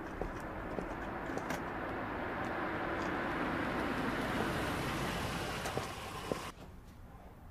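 A taxi drives up to the kerb. Its engine and tyre noise swell to a peak about four seconds in, then stop abruptly near the end.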